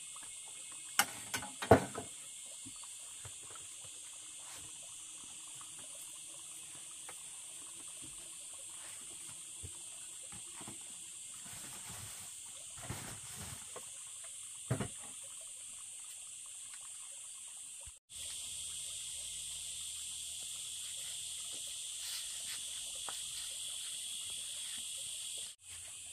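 Steady high-pitched chorus of insects buzzing, with a few sharp knocks near the start and again about fifteen seconds in. The sound drops out for an instant twice.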